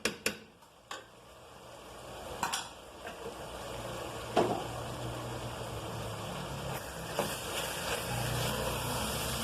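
Seasoned ground beef sizzling in a frying pan while a spoon stirs it, with a few knocks of the spoon against the pan. The sizzle drops low about a second in, then builds up again.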